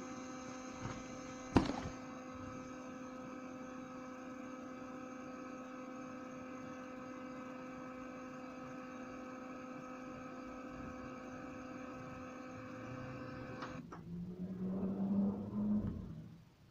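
Tower speaker with radio and CD player giving off a steady electronic buzzing tone, which cuts off suddenly about fourteen seconds in. A sharp click comes about a second and a half in, and a short rougher, lower sound follows after the tone stops.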